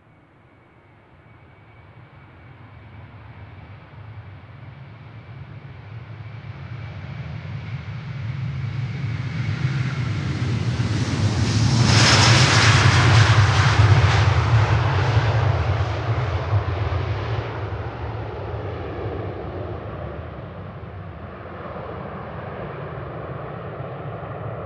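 Large jet airliner's engines at takeoff thrust as it passes. The noise swells steadily, is loudest and harshest about twelve to fifteen seconds in, then eases into a lingering low rumble. A faint high whine is heard at first.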